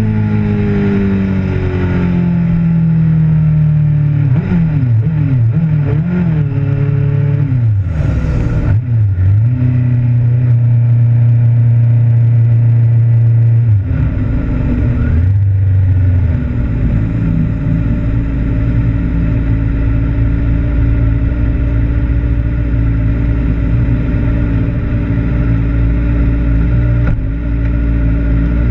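Sport bike engine heard from onboard. The revs fall and waver through several shifts, hold a steady note for a few seconds, then drop about fourteen seconds in and settle to a steady low idle.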